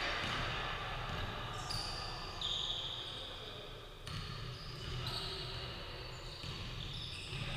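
Basketball bouncing on a hardwood court in an echoing sports hall, with several high-pitched squeaks lasting up to about a second.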